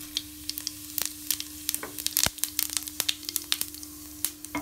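Mustard seeds spluttering in hot ghee during tempering, with many sharp, irregular pops over a light sizzle as cumin seeds are sprinkled into the pan. The spluttering is the sign that the ghee is hot enough for the cumin to go in.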